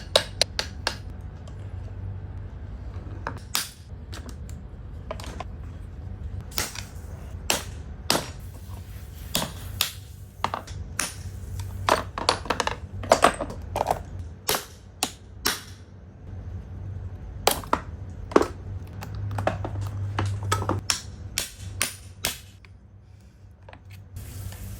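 Irregular sharp clicks and knocks of hand tools and metal parts being handled during CV axle work, over a steady low hum.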